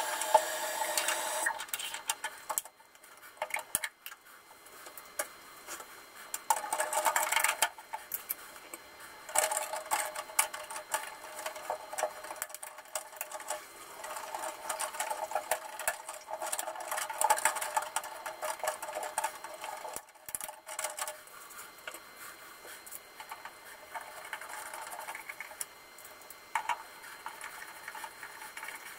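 Fast, continuous clicking and clattering of plastic parts being handled and snapped into place, with a screwdriver, as the actuator-plate mounting frame is fitted onto a Geberit concealed cistern. The footage is fast-forwarded, so the handling noises run together into a rapid, machine-like chatter.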